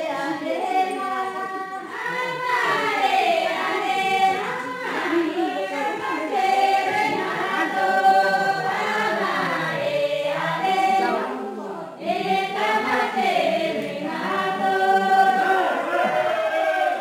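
A group of voices singing a traditional Kinnauri dance song together, in phrases of a few seconds with short pauses between them.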